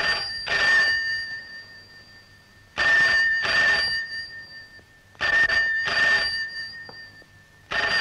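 Desk telephone's bell ringing for an incoming call, in double rings: two short rings repeating about every two and a half seconds.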